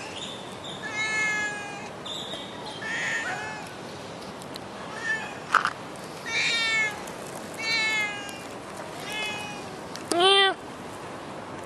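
A tabby-and-white cat meowing again and again, about seven separate meows with the loudest near the end. There is a single sharp click about halfway through.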